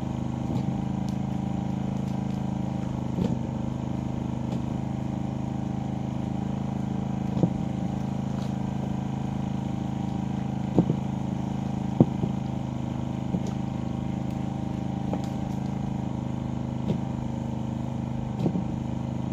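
Small engine running steadily at a constant speed, most likely the engine driving the pump that drains the fish pond. A few short sharp clicks sound over it.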